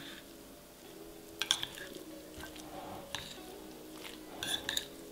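Metal spoon stirring a grated salad dressed with sour cream in a glass bowl: soft wet squishing with several sharp clinks and scrapes against the glass, in groups about a second and a half in, around three seconds, and near the end. Soft background music runs underneath.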